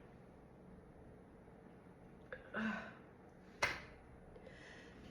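Soft breaths and sniffs from a woman fighting off sneezes: a short breathy sound about two and a half seconds in, a sharp click a second later, then another soft breath near the end.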